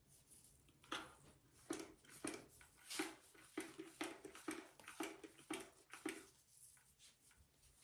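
Amazon parrot giving a run of about a dozen short, clipped calls, roughly two a second, starting about a second in and stopping about six seconds in.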